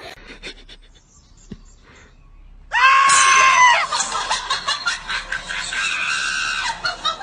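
A loud, high-pitched scream starting about three seconds in, held for about a second, then running on as several seconds of shrill, rougher screaming.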